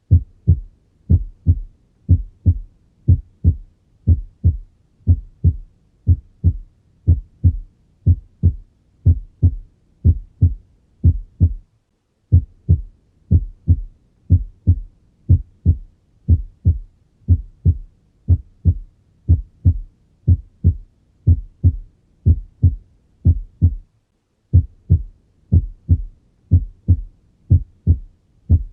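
Human heart sounds: a steady lub-dub of paired low thuds, about one heartbeat a second, with two brief breaks where the recording stops.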